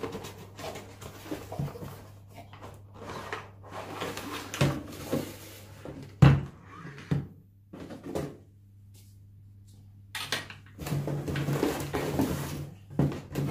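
Unboxing handling noise: a cardboard box being opened and a plastic garden pressure sprayer pulled out, with scraping, rustling and small clicks. There is a sharp knock about six seconds in as the sprayer is set down on the table, then more rustling near the end.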